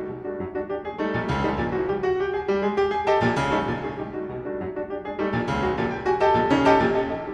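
Grand piano played in fast, dense passages, with loud struck chords coming again and again, about a second, three seconds, five seconds and six and a half seconds in, the last the loudest.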